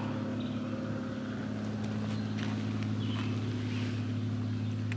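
An airplane's engine droning steadily overhead, over the rush of the creek.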